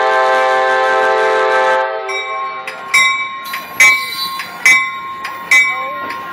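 Amtrak train horn holding a loud multi-note chord that cuts off about two seconds in. After it a bell strikes roughly once a second, over the rumble of the train's wheels rolling past at low speed.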